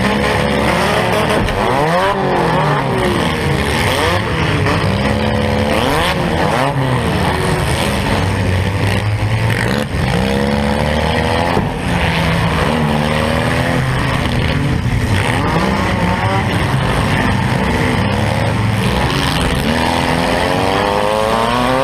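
Compact car's engine revving hard inside its stripped-out cabin, pitch climbing and falling again and again as the car is driven and reversed, with other cars' engines around it.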